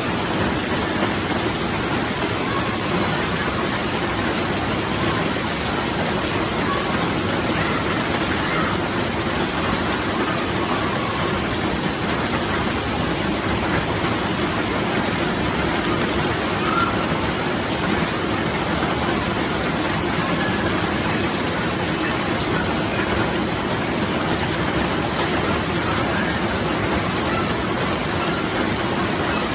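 Monsoon rain falling steadily, an even hiss that holds at one level throughout.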